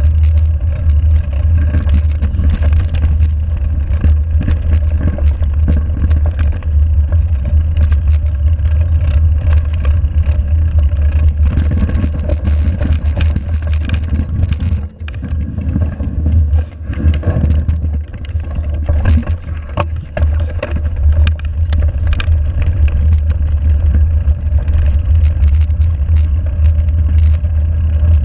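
Mountain bike riding noise on a snowy forest track, picked up by a GoPro: a heavy low rumble of wind and tyres rolling over snow and gravel, with clicks and rattles from the bike over bumps. The rumble drops off briefly about halfway through.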